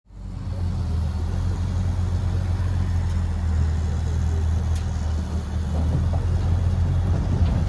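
Front-end loader's diesel engine running steadily close by with a low drone while it tips a bucket of soil into a pickup bed. The drone fades in quickly at the start.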